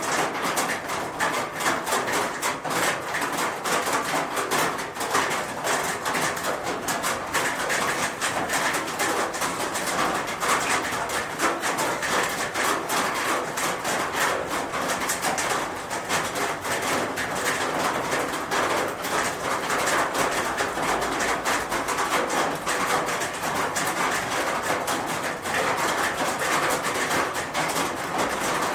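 Rain falling on a roof: a dense, unbroken patter of many small drop impacts over a steady hiss.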